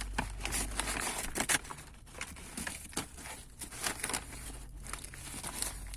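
A sandwich wrapper being crinkled and pulled open by hand: irregular rustling and crackling, busiest in the first second and a half, then lighter.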